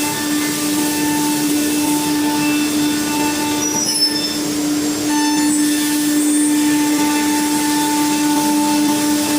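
CNC router spindle running as it cuts plywood: a steady high whine over the rushing noise of cutting and dust extraction, with a brief sharp click about four seconds in.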